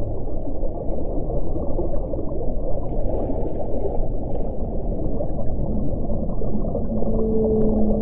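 Underwater whale sounds: a dense low rumble of water noise, and about seven seconds in a steady low moan begins and holds.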